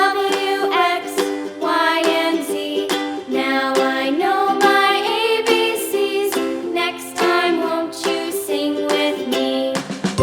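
Upbeat background music led by a plucked ukulele, with a steady strummed rhythm.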